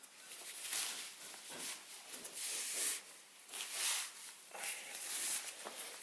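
Cloth rustling in irregular swishes as lightweight trousers are handled and the drawstring is pulled through the waistband.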